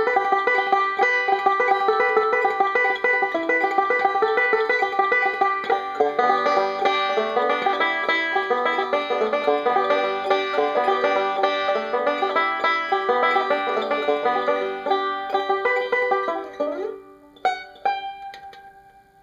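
Five-string resonator banjo picked in a steady, dense run of notes. About 17 seconds in the playing winds down to a couple of last strummed chords that ring out and fade away.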